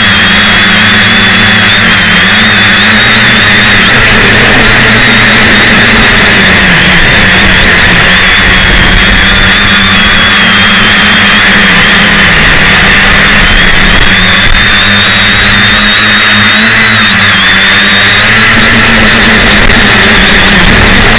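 Electric motors and propellers of a V-tail quadcopter, a steady loud whine with a slight waver in pitch, picked up very close by a camera mounted directly on the craft's battery.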